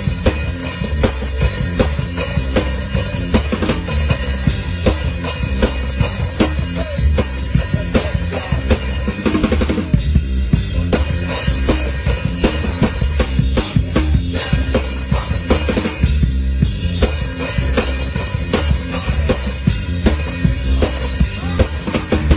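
A rock band playing live, with the drum kit loud and close: a dense, steady stream of kick drum, snare and cymbal hits over the rest of the band.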